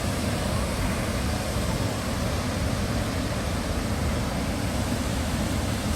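Cheonjiyeon Waterfall's water falling into its pool: a steady, unbroken rush.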